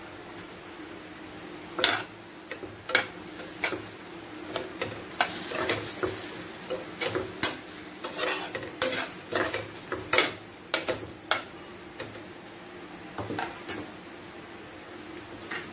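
A utensil stirring chicken pieces in a steel pan of thin sauce, clinking and scraping against the metal many times in irregular strokes, over a steady low sizzle from the pan.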